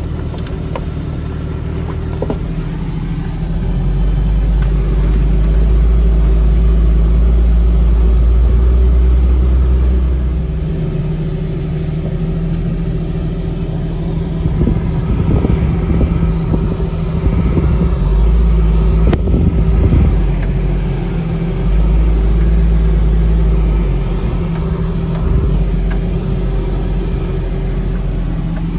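Jeep engine running as it crawls slowly over a rough, rocky trail, with a deep low rumble that swells for several seconds at a time and scattered knocks and rattles from the rough ground.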